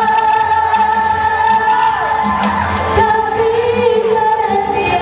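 Pop-style music with singing, a held melody line that bends in pitch.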